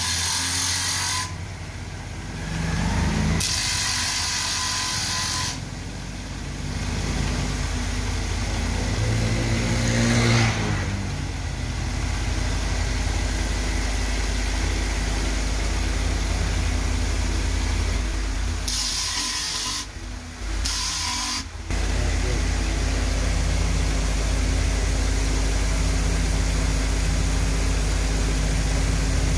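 Bench grinder motor running with a steady hum, broken by several harsh grinding bursts of a second or two each as a laminated wooden knife handle block is pressed against the spinning abrasive disc to shape it.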